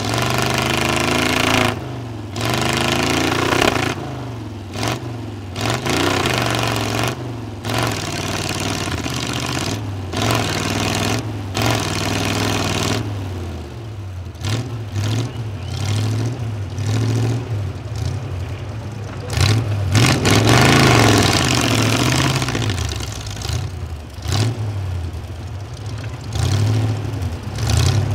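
A GAZ-66 trial truck's engine revving hard again and again, rising and falling with short breaks off the throttle, as the truck works nose-down in a deep pit.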